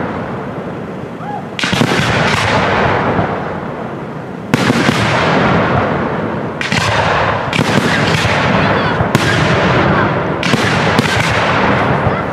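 Fireworks display: aerial shells bursting with sharp booms, each trailing off in a long rolling echo. There are about eight, a few seconds apart at first and coming faster, roughly every second, in the second half.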